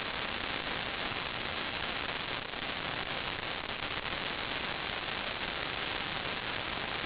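Steady static hiss at an even level, with no distinct events.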